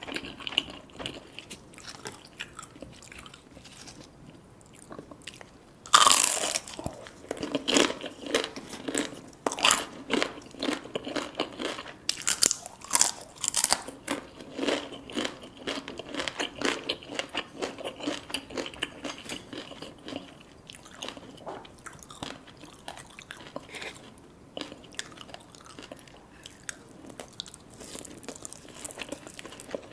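A person biting into crunchy deep-fried food and chewing it. There is a sharp, loud crunch of a bite about six seconds in, then steady crunchy chewing that grows quieter over the last third.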